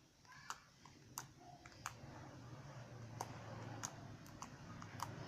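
A handful of sharp, irregularly spaced clicks and small pops, with a low hum coming up beneath them about two seconds in.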